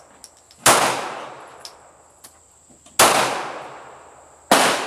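Three shots from a Glock 43 9mm pistol, unevenly spaced, each a sharp crack trailing off in a long echo.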